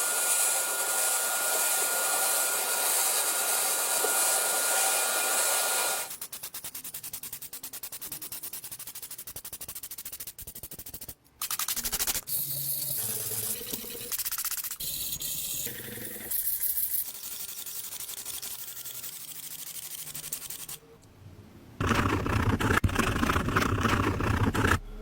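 Workshop restoration sounds in quick cuts: a power tool running steadily for about six seconds, then a softer run of rapid ticking and short rubbing and handling sounds, and another loud bout of machine noise near the end.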